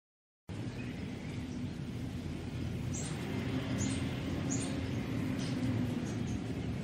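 Small-town park ambience: birds chirping in short high calls, repeated several times from about three seconds in, over a steady low background rumble. It starts after a brief moment of silence.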